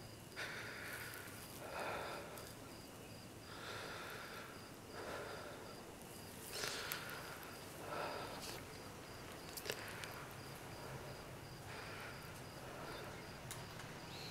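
Crickets chirping at night: a thin, high pulse repeating evenly a few times a second. Underneath are faint irregular swishing sounds and a few soft clicks.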